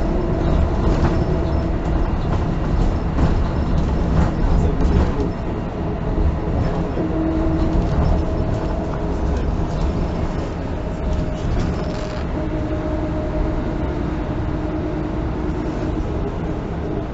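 Mercedes-Benz O405N1 city bus under way, heard from inside the passenger cabin: the engine and drivetrain run with a steady low rumble and a whine whose pitch shifts a few times, with light rattles throughout.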